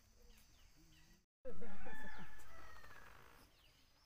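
A rooster crows once, loudly, right after a brief dropout in the audio, the call fading away over about two seconds. Faint small-bird chirps come before it.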